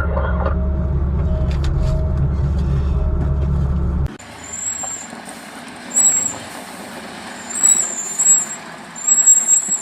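A heavy truck's diesel engine runs steadily with a deep rumble, then cuts off abruptly about four seconds in. A quieter stretch follows with several short, high-pitched squeals.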